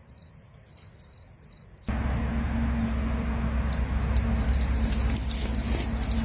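Cricket chirping rhythmically, high-pitched, about two or three chirps a second. About two seconds in it cuts off abruptly, replaced by a steady low rumbling noise and hum, with a thin high insect-like tone entering later.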